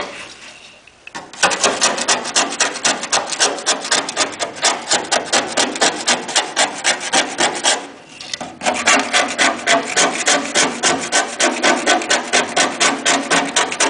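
A hand scraper dragged in rapid back-and-forth strokes, about five a second, across the corroded aluminum of a Cessna 180 wing, scraping the corrosion away. The scraping starts about a second in and stops briefly about halfway through.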